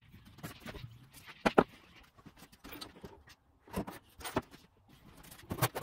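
Hand tools being handled at a wooden tool chest and workbench: irregular knocks and clicks of wood and metal, the sharpest about a second and a half in.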